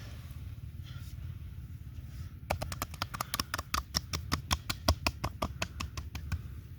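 A fast run of sharp cracking hand strikes during a massage, about eight a second, starting a little after two seconds in and stopping about half a second before the end, over a steady low hum.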